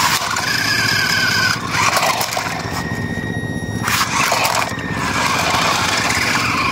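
Electric motor and gears of a toy remote-control off-road car whining steadily as it tows a second RC car over concrete, the whine wavering in pitch.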